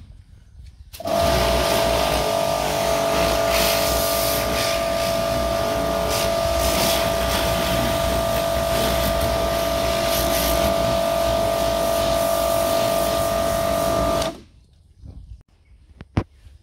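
Pressure washer running, a steady motor whine under the hiss of the spray jet hitting the quad's plastic bodywork and tyres. It cuts out at the start, starts again about a second in, and stops about two seconds before the end, leaving a few faint clicks.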